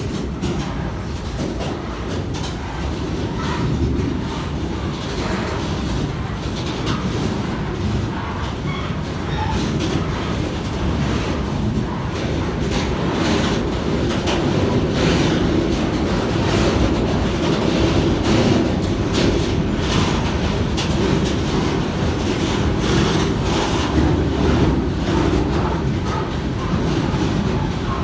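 Freight train wagons rolling along the track: a continuous heavy rumble with many irregular clacks of wheels over rail joints, growing a little louder midway.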